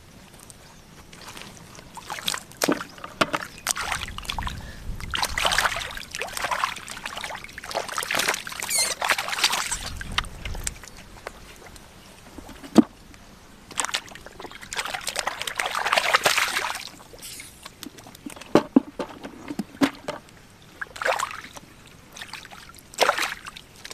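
Shallow field water sloshing and splashing in irregular bursts as it is stirred by hand, with a few sharp slaps in between.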